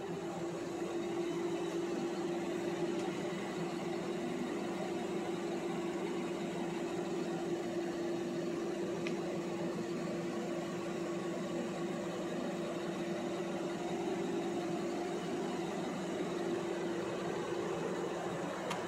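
Ford police SUV idling: a steady, unchanging mechanical hum with a constant low tone.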